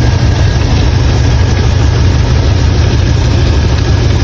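A 1987 Pontiac Grand Prix's engine running steadily with a loud, even low rumble, freshly filled with new oil.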